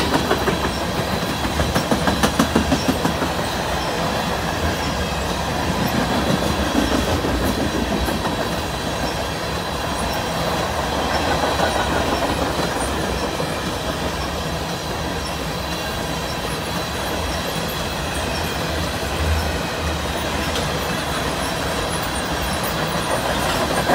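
CN freight train's tank cars rolling past: a steady rumble of steel wheels on rail with a rhythmic clickety-clack over the rail joints and a faint, steady high wheel squeal.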